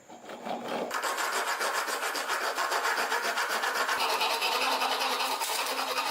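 Hand saw cutting through a hardwood handle blank, a steady rasping with a fast, even rhythm that starts about a second in.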